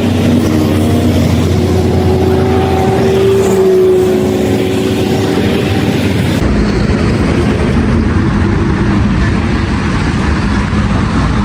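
Truck engine running steadily. About six seconds in the sound changes abruptly to a deeper, rougher running.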